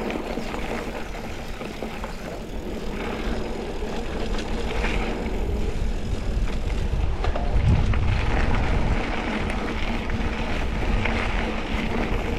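Mountain bike riding along a dirt double-track trail: tyres rolling and wind buffeting the microphone in a steady rush with a low rumble, with a few light clicks. The rumble grows louder about halfway through.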